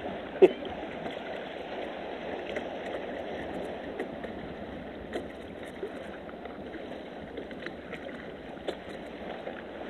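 Steady wash of water with a few faint clicks, the sharpest about half a second in.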